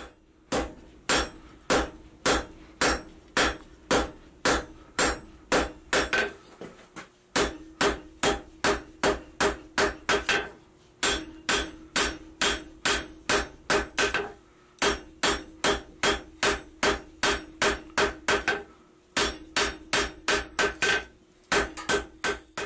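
Hand hammer striking red-hot spring steel on an anvil, drawing the bar down to a flat taper: a steady run of blows about two a second, with a ringing tone through each run and a few short pauses between runs.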